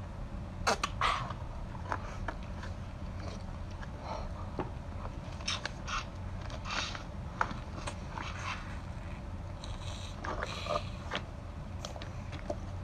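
Sucking and slurping at the open end of a large cooked lobster tail to draw the meat out, with short clicks and scrapes of the shell in the hands and a few longer hissing sucks.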